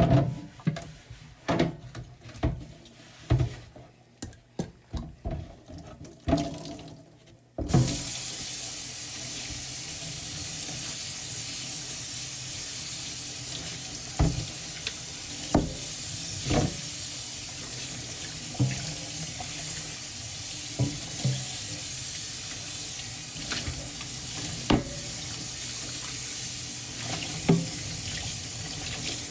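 Handling knocks at a kitchen sink, then the tap turned on about seven or eight seconds in: water running steadily into the sink while a cutting board is washed, with occasional knocks.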